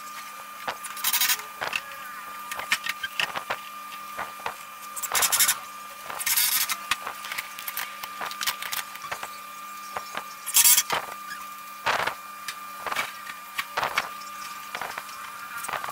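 Close handling noise: irregular clicks and knocks with a few short scraping rustles, over a steady electrical hum.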